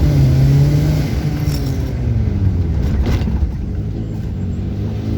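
Turbocharged Fiat Uno engine pulling under acceleration. About three seconds in the engine drops back to a lower, quieter running note, with a short hiss as the throttle closes.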